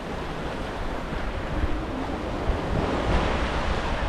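Small sea waves breaking and washing over shoreline rocks in a steady surf wash, with wind buffeting the microphone in a low rumble.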